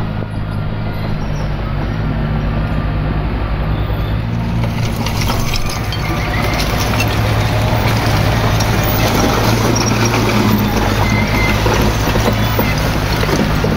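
Komatsu D21P bulldozer's diesel engine running steadily. About a third of the way in, a louder rattling, crunching noise of dirt and rock being moved comes in over it.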